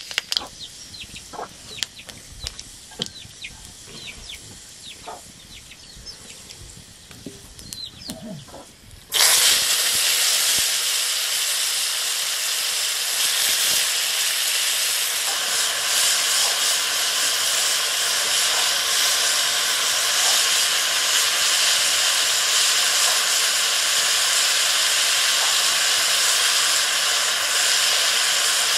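Hot oil in an iron wok crackles lightly; about nine seconds in, sliced wild mushrooms go into the oil and a loud, steady sizzle starts suddenly.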